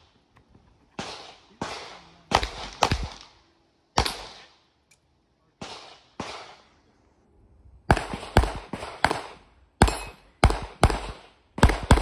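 Handgun shots fired in fast strings on a competition shooting stage: about sixteen shots, in quick pairs and short runs, with a pause of over a second just past the middle.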